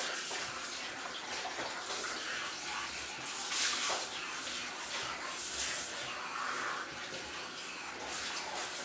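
Water spraying from a handheld shower head over a cat's wet fur as it is rinsed, a steady splashing hiss that swells now and then.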